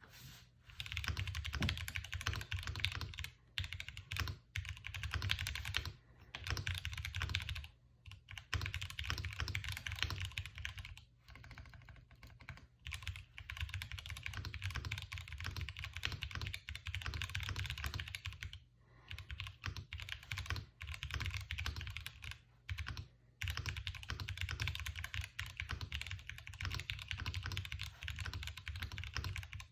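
Typing on a Tofu 65 mechanical keyboard with stock Gateron Kangaroo Ink V2 tactile switches, an O-ring-mounted aluminum plate and lubed clip-in stabilizers. It is a fast, continuous run of keystroke clacks, broken by short pauses every few seconds.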